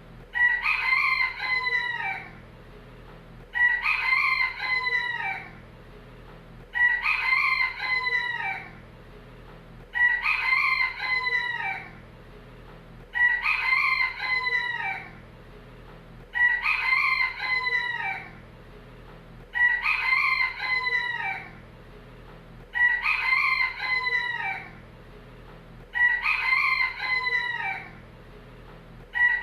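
Rooster crowing, one crow about every three seconds, each crow the same shape with several rising and falling parts, as if the same call is looped.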